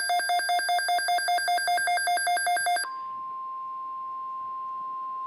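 Weather alert radio sounding: a rapidly pulsing, ringing alarm that cuts off about three seconds in, followed by the steady single-pitch NOAA Weather Radio alert tone, which signals an incoming weather warning message.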